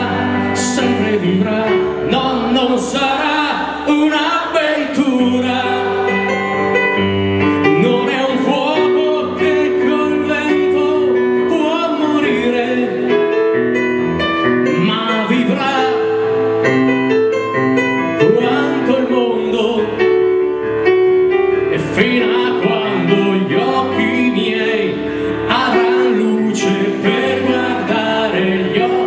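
A man singing a song into a handheld microphone, with keyboard accompaniment.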